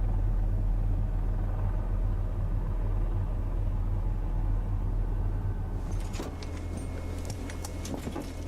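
A steady low rumble. About six seconds in it drops away, and a scatter of sharp clicks and ticks begins.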